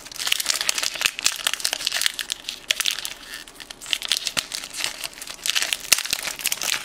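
1992–93 Topps Stadium Club basketball cards being flipped through and slid against one another in the hands: a steady run of crisp clicks and rustling.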